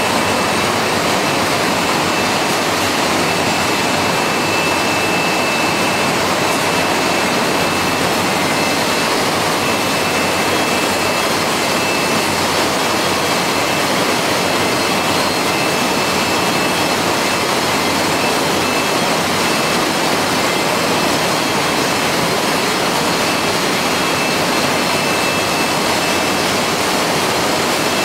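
Steady machine noise of a poultry slaughter line running, its conveyor and feather-removal machinery going at once, with a faint steady high whine over it.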